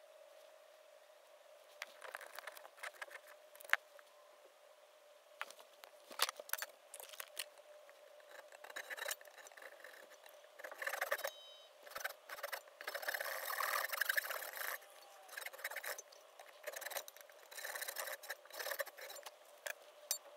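Fine-toothed hand saw cutting a lengthwise slot into a small wooden lure body clamped in a bench vise: short, irregular rasping strokes with scattered clicks, heaviest from about 11 to 15 seconds in.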